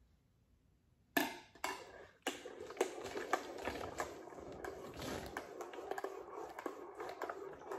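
A spoon stirring in a mug, clinking and scraping against the sides over and over. A couple of sharp clinks come about a second in, as the spoon goes into the mug.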